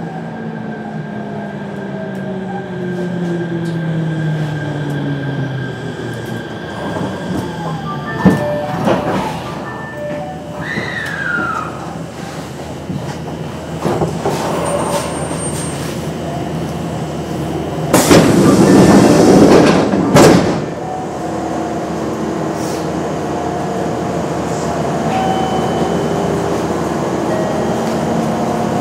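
Kintetsu 7000-series train's Mitsubishi IGBT-VVVF inverter and traction motors whining down in pitch under braking as the train slows to a stop at a station, the tones fading out within about six seconds. About 18 s in, a loud rush of air lasts about two seconds, then the stopped train hums steadily.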